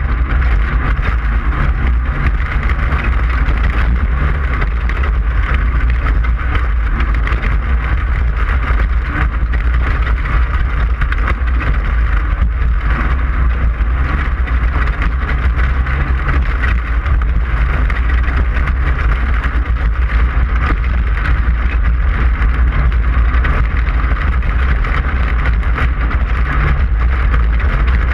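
Class 5/1600 Baja Bug's air-cooled 1600 cc VW flat-four running steadily at race pace over dirt, a constant loud rumble with a layer of rough noise and small ticks.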